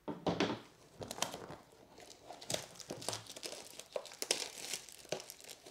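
Plastic wrapping on a pack of baseball cards crinkling and crackling as it is handled and opened, in irregular bursts, loudest just after the start.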